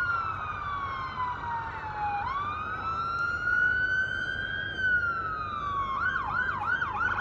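Emergency-vehicle siren sounding a slow wail, its pitch falling and rising over a few seconds at a time. About six seconds in it switches to quick up-and-down sweeps, a yelp.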